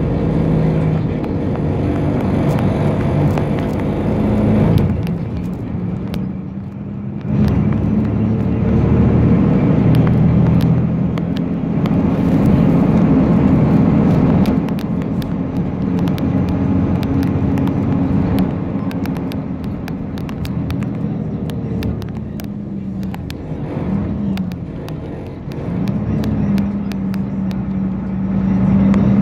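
Cabin noise inside a 1996 Hino RG197K diesel bus under way: the engine pulling, easing off about five seconds in, then picking up again about two seconds later, with frequent sharp rattles from the bus body and fittings throughout.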